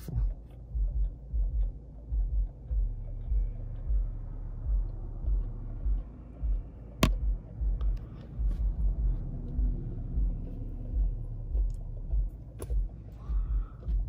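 Low, uneven rumble inside a car cabin as the car idles and moves off, with a sharp click about seven seconds in and another near the end.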